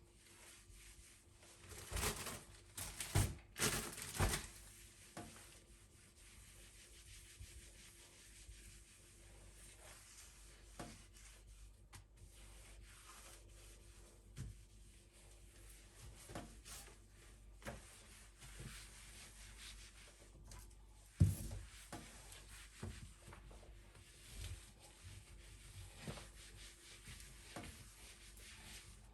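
Quiet hand-handling sounds of objects being rubbed and rustled, with scattered knocks; a cluster of louder knocks comes about two to four seconds in, and one sharp knock about twenty-one seconds in.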